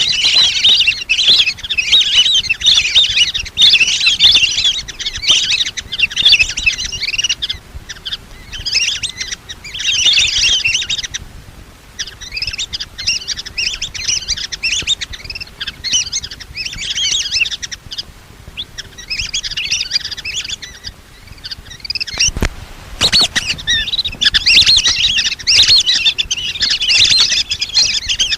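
A flock of lesser whistling ducks calling: many high, thin whistled chirps overlapping in a rapid chatter, coming in bursts with short pauses between them. A single brief thump sounds about two-thirds of the way through.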